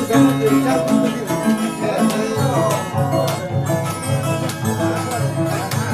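Andean harp playing a lively tune, plucked bass notes under a running melody.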